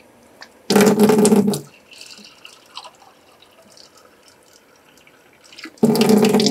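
Water splashing into a laundry sink in two bursts: a short one about a second in and a longer one starting near the end, with only a faint trickle between.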